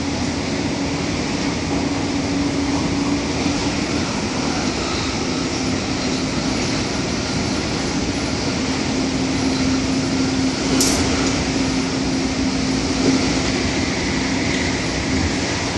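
Cabin noise inside an MTR Tung Chung line A-Train running at speed: the steady rush and rumble of the train in motion, with a steady low hum underneath. There is a brief sharp click about eleven seconds in.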